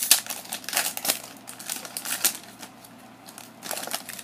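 Foil wrapper of a Pokémon TCG Shining Legends booster pack crinkling and crackling as it is torn open by hand. The crackles come thick and sharp at first, ease off after about two seconds, and return in a short flurry near the end.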